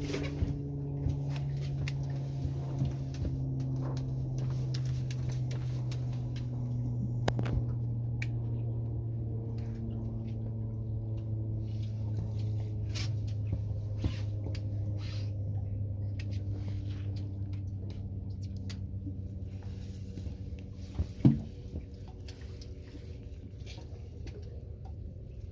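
Steady low engine drone from the boat idling, its pitch sagging slowly, with scattered light clicks from the spinning reel as a fish is reeled in and one sharper knock near the end.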